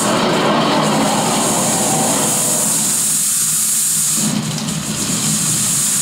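A loud, steady rushing hiss and rumble from the stage sound design, with a brief dip in level a little past halfway.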